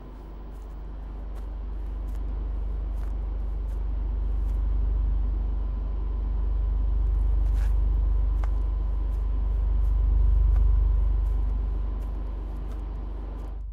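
Deep, continuous low rumble of heavy open-pit mining machinery, swelling and easing, with a faint steady whine above it. It cuts off abruptly at the end.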